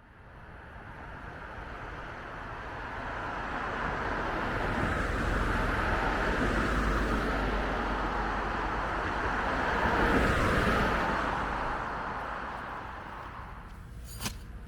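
A vehicle passing: a rushing noise that builds over several seconds, peaks about ten seconds in, then fades, with a single sharp click near the end.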